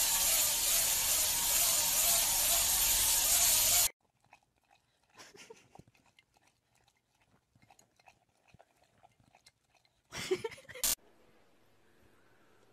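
A loud, steady hiss for about the first four seconds, cutting off abruptly. Then faint wet clicks and smacks of a dog licking the inside of a drinking glass, broken by a brief loud burst a little after ten seconds.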